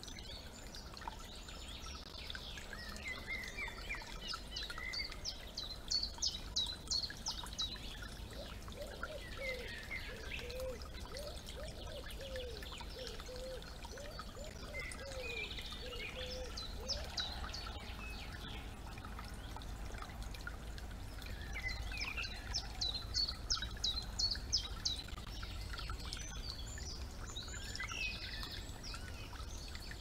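A small woodland stream trickling steadily while several birds sing. A rapid high trill comes a few seconds in and again past the middle, with scattered chirps throughout and a run of lower, wavering repeated notes in between.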